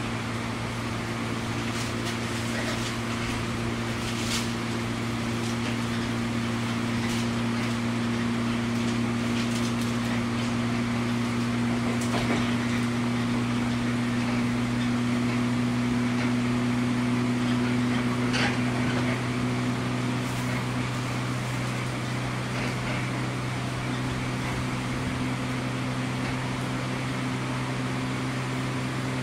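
JR 103 series electric train with MT55 traction motors running at speed, heard inside the car: steady motor and gear hum over rolling noise, with a tone that rises slightly and drops away about twenty seconds in, and a few sharp clicks.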